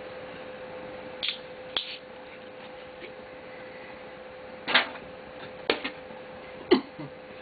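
Six or so short, sharp clicks and knocks at irregular intervals, the loudest about three-quarters of the way in, over a steady hum.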